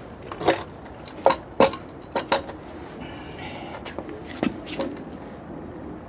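Rusty iron machine-gun mount being handled: about seven sharp metallic clanks and knocks, several close together in the first couple of seconds and two more about a second before the end.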